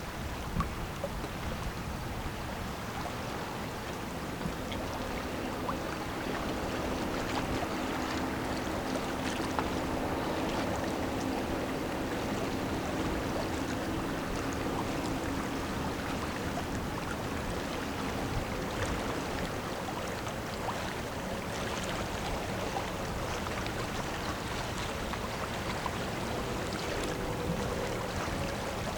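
Steady wash of river water and wind, with a faint low engine hum that comes in a few seconds in and fades a little past the middle. A higher faint hum appears near the end.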